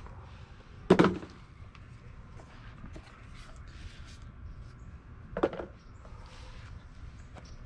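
A rigid cardboard reel box being opened and handled: faint rustles and light taps, with two louder brief sounds about a second in and about five and a half seconds in.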